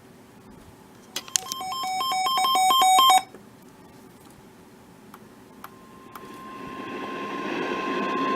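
A weather radio receiver's electronic alert: a rapid warble alternating between two pitches, growing louder for about two seconds and then cutting off suddenly. From about six seconds in, the steady single-pitch NOAA Weather Radio warning alarm tone comes up over hiss, swelling in level. Together they signal that a new warning is about to be broadcast.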